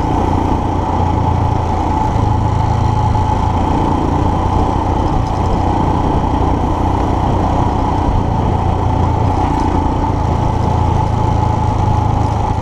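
2019 Royal Enfield Himalayan's single-cylinder engine running steadily while the motorcycle rides along a dirt road, with no revving up or down.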